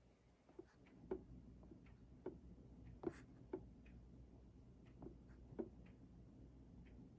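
Faint, irregular light clicks and taps, one or two a second, over a low steady hum.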